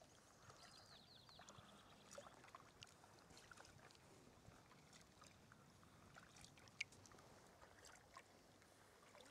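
Faint sea-kayak paddling on calm water: soft drips and small splashes as paddle blades dip and lift.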